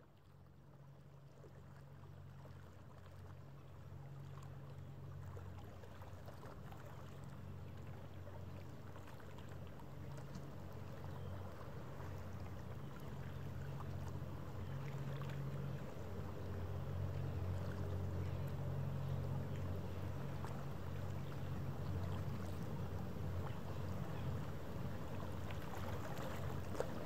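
Low, steady drone of a ship's engines with a wash of water noise, growing louder over the first fifteen seconds or so as the vessel draws closer, then holding steady.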